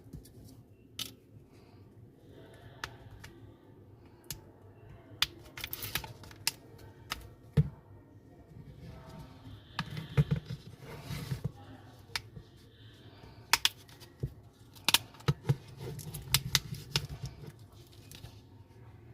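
Irregular sharp clicks, taps and light scraping of small hand tools and parts being handled during a smartphone repair.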